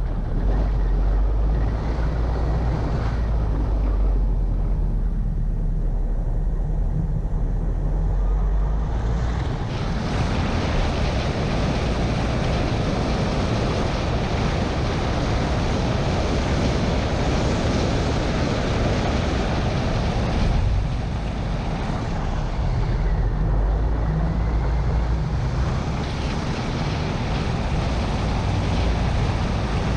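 Wind rushing over a bonnet-mounted camera's microphone while a car drives along, over a steady low engine and tyre rumble. The rushing grows fuller and louder about a third of the way in, easing briefly twice later on.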